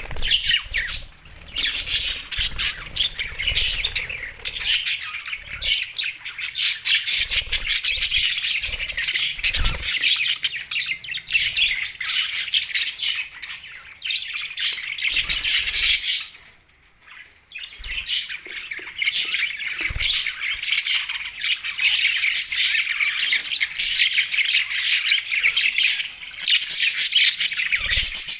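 Budgerigars chattering and chirping in a dense, almost unbroken stream of quick, high squawks and warbles. The chatter pauses briefly a little past the middle, then picks up again.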